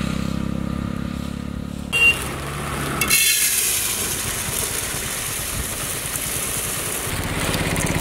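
Raw rice grains pouring into an aluminium pot, an even dry hiss from about three seconds in. Before it comes a steady low hum, broken by a single knock about two seconds in.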